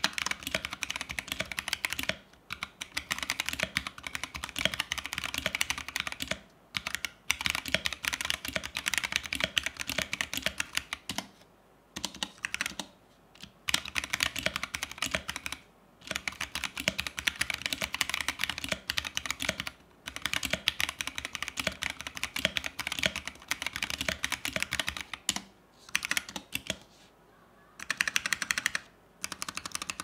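Akko ACR61 mechanical keyboard in its stock clear acrylic case being typed on, fast runs of key clacks broken by short pauses every few seconds.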